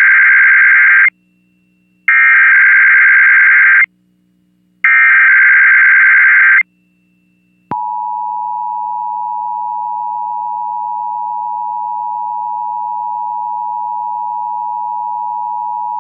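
Emergency Alert System SAME header: three bursts of warbling digital data tones with short gaps between them. About seven and a half seconds in, the steady two-tone EAS attention signal (853 and 960 Hz together) begins and holds, marking the start of a Required Monthly Test broadcast.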